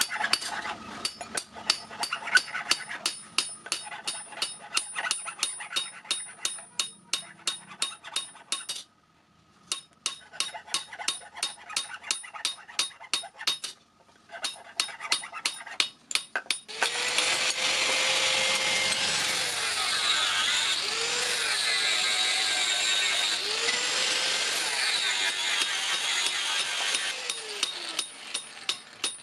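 Hammer blows on metal at an anvil, about four a second with a high ring, stopping briefly twice. Then a power grinder cuts or grinds the steel for about ten seconds, its pitch dipping and rising under load, before the hammering resumes near the end.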